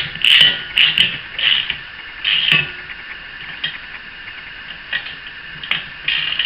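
Socket ratchet clicking in short strokes on the wheel's axle bolt: a quick run of strokes in the first three seconds, then a few sparse ones.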